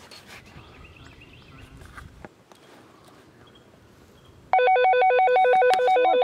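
Mobile phone ringtone: a loud electronic trill flicking rapidly between two pitches, starting suddenly about four and a half seconds in after low background.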